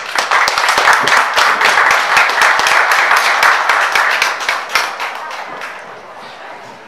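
Dinner audience applauding: clapping swells quickly at the start, holds for a few seconds and dies away about five seconds in.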